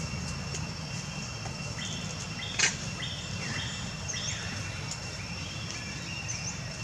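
Birds calling in short chirps and brief downward-sweeping whistles over a steady high insect drone, with one sharp click a little over two and a half seconds in.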